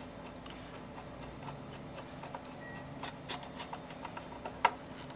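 Small, irregular clicks and taps of a screw and screwdriver being worked into a DLP television's plastic cooling fan housing, thickening a few seconds in, with one sharper click near the end.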